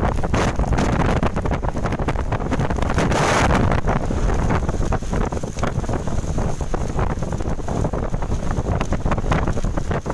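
Strong, gusty wind buffeting the microphone: a loud, continuous rumbling rush that swells briefly about three seconds in.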